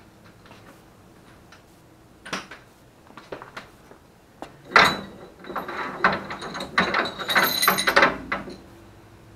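Metal clanking and rattling from a coil spring compressor being worked loose and drawn out through the shock tower by hand. A few light clicks, a sharp clank about halfway through, then a few seconds of ringing metallic clinking and scraping.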